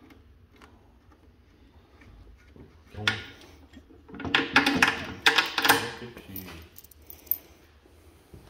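Small metal hardware (bolts, washers and lock nuts) clinking and rattling together in a hand, in a burst of clicks a little after the midpoint, after a single knock about three seconds in.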